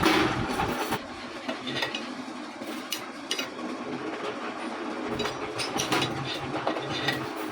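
Workshop sounds of spring-making: a machine running steadily under scattered metallic clinks and knocks, with a louder knock right at the start.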